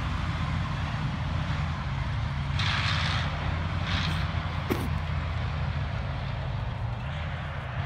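T-72 tank's V-12 diesel engine running with a steady low drone, heard from a distance. Two brief hissing rushes come about three and four seconds in.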